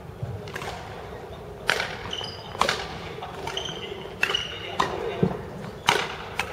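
Badminton doubles rally: about six sharp racket strikes on the shuttlecock, roughly one a second, mixed with brief high squeaks of court shoes on the floor.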